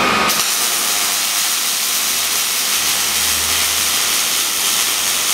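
MIG welding arc from a CIGWELD Transmig 250i burning on 5 mm plate, a steady hiss that starts about a third of a second in.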